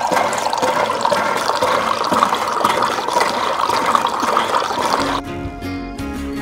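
A thin stream of water pouring from a miniature model hand pump's spout into a small stainless-steel bucket as it fills, cutting off about five seconds in. Background music takes over after that.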